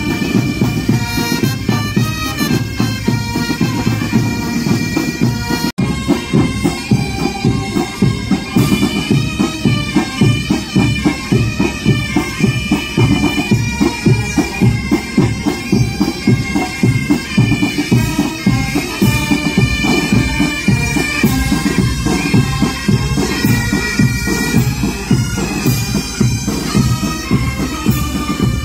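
A military marching band plays a march, wind instruments carrying the tune over a steady drumbeat. There is a brief break about six seconds in.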